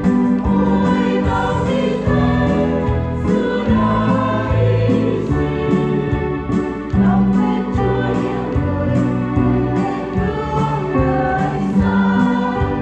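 Choir singing a Vietnamese Catholic hymn for All Saints with sustained, changing notes over a steady beat and low accompanying notes.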